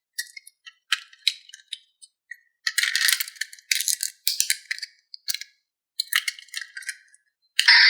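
Small hard plastic pieces rattling and clicking in short irregular bursts, as toy parts are handled. A loud steady hiss begins just before the end.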